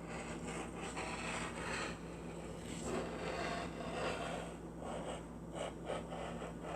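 Fabric being handled and shifted on a work table: irregular rustling and light scraping.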